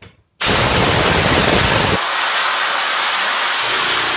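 Compressed air blasting from an air blow gun nozzle on a compressor hose: a loud steady hiss that starts abruptly about half a second in, with a deeper rush that drops away about two seconds in. The jet is pointed upward, holding a screwdriver floating in the air stream.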